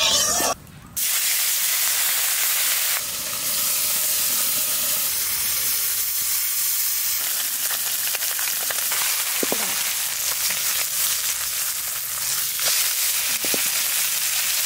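Small morola fish (mola carplets) coated in salt and turmeric sizzling steadily as they fry in hot mustard oil in a wok, with a brief break just before a second in.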